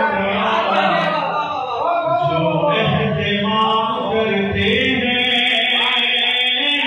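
A man's voice in a melodic, chanted recitation with held notes, amplified through a microphone and PA system.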